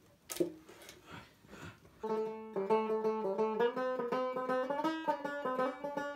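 Banjo being picked up and played: a few knocks and brief string rings as it is handled, then from about two seconds in a plucked melody of ringing notes and chords.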